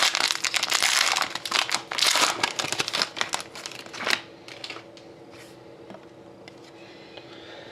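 Wrapper of a Panini Dominion hockey card pack crinkling and tearing as it is opened, busy for about four seconds, then dropping to a few faint handling clicks.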